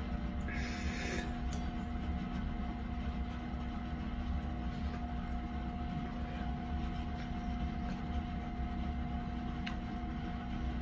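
A steady low machine hum with a constant tone running through it, and a brief hiss or rustle about a second in.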